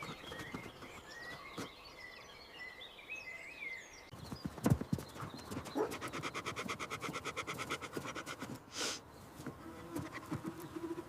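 Faint birdsong chirping, then horse sounds: a thud, about two seconds of rapid fluttering breath like a nicker, and a short snort.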